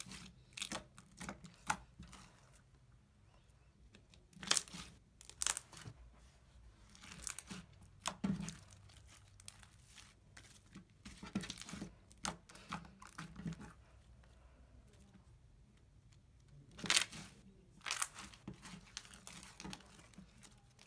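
Crunchy slime full of foam beads being squeezed, kneaded and stretched by hand: irregular clusters of crackles and pops, loudest about four and a half seconds in and around seventeen to eighteen seconds in.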